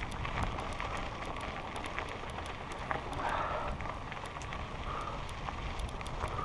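Mountain bike tyres rolling over a loose gravel trail, a steady crackle of small stones, with wind rumbling on the helmet-mounted microphone.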